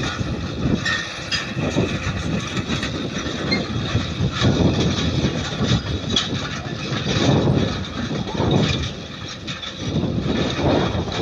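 Fendt 615 LSA tractor's turbo diesel engine running under load as it pulls a seedbed harrow through ploughed soil, with the harrow's metal frame and rollers rattling. The noise swells and eases unevenly, with scattered sharp clicks.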